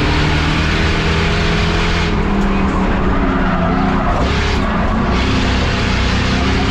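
Race car engine running hard at speed, heard loud and close, with tyre noise. The engine note shifts briefly around the middle, as if the driver lifts or changes gear.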